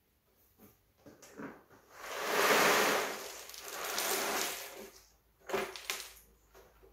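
Cardboard jigsaw puzzle pieces poured out of their box onto a tabletop, a long rattling cascade from about two seconds in to about five seconds, after a little rustling of the box being opened. A few sharp clacks follow near the end as the last pieces and the box come down on the table.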